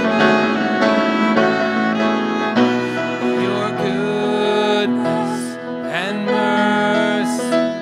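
Violin playing a melody over grand piano in an instrumental passage of a slow worship song, with a few rising pitch slides.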